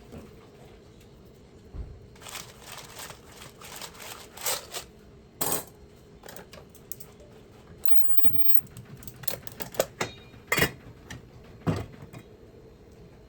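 Small hard objects being handled: an irregular series of clicks, taps and clinks, a few of them sharper and louder in the second half.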